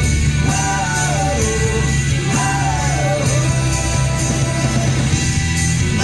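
Background music: a rock-pop song with a singing voice, guitar and drums over a steady beat.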